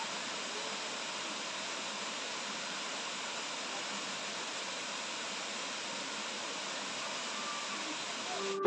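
Rushing water: a steady, even hiss of flowing or falling water that cuts off suddenly near the end.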